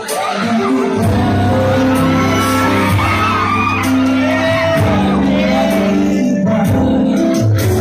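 A man sings a love-song serenade into a microphone over a backing track, with shouts and whoops over the singing in the first few seconds.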